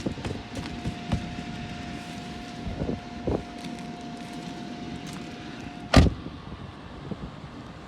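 Tesla Model 3 power-window motor whining steadily for about six seconds as it strains against glass held by ice, then a single loud thump. Wind noise on the microphone.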